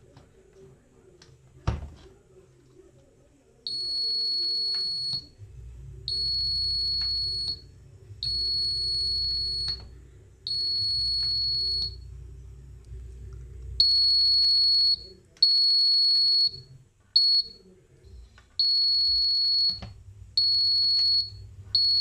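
Piezo buzzer of an Arduino reed-switch door alarm beeping on one high steady tone, about ten beeps: the first four about a second and a half each at even spacing, the later ones shorter and uneven. The alert is set off when the door latch is opened and the magnet moves away from the KY-021 reed switch. A sharp click of the metal hasp being handled comes about two seconds in, before the beeping.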